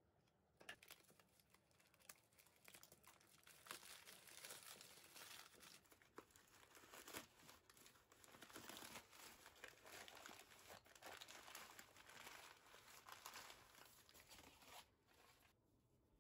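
Newspaper wrapping crumpled and torn by hand as a parcel is unwrapped. It is a faint, irregular crackling that stops near the end.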